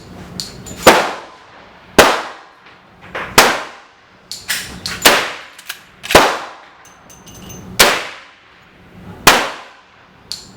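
Gunshots at a shooting range: seven sharp reports, each with a decaying tail, about every second to second and a half, with fainter metallic clicks between them. With only two rounds loaded in the Winchester 94 .357 Magnum carbine, not all of these can come from it, so some must be other shooters firing nearby.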